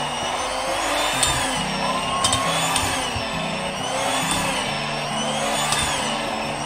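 Maspion electric hand mixer running with spiral dough hooks kneading stiff donut dough in a stainless steel bowl; its motor whine rises and falls about every second and a half, with an occasional tick.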